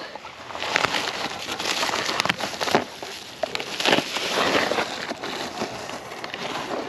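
Rustling and crackling with scattered clicks and knocks: kayak parts and packaging being handled.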